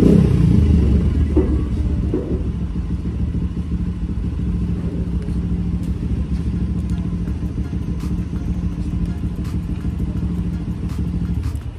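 An engine running steadily at a constant pitch, loudest in the first second or so.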